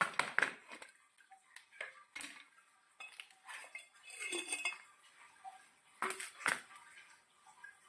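Light metal clinks and knocks of an office chair's gas cylinder and removal tool being worked and handled, scattered and irregular, with two sharper knocks about six seconds in.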